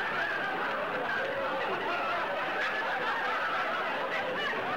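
Studio audience laughing steadily, many voices chuckling together in reaction to a joke's punchline.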